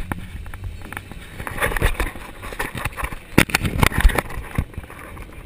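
Action camera on a moving bicycle: irregular knocks and rattles from the camera being handled and jolting in its mount, over a low wind rumble on the microphone. The knocks are loudest and come thickest around the middle.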